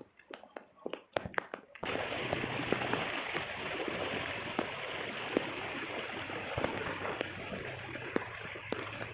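Floodwater running, a steady rush of flowing water that starts abruptly about two seconds in, after a few faint clicks.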